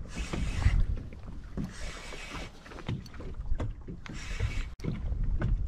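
Small waves splashing against a fiberglass bass boat's hull in short washes about every two seconds, over a low wind rumble on the microphone.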